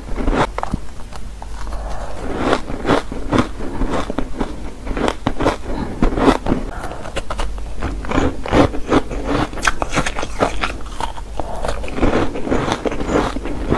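Shaved ice being chewed, crunching and crackling in quick, irregular crunches, heard close up.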